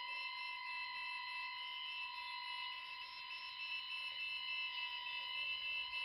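Hasbro Proton Pack's electronics sounding a steady, high electronic warning tone, like an alarm, with a faint pulsing overtone. This is the alert the pack gives when the magnetic connectors on its wires are left unplugged.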